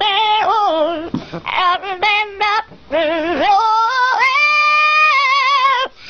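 Yellow-naped Amazon parrot singing in a human-like voice: several short wavering phrases with sliding notes, then one long held note over the last two seconds that steps slightly in pitch.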